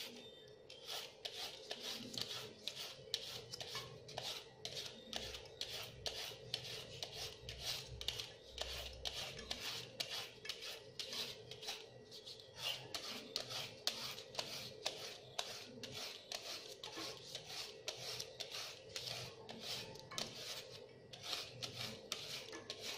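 Julienne peeler scraping down a raw carrot in quick, repeated rasping strokes, cutting it into thin strips, with a few brief pauses.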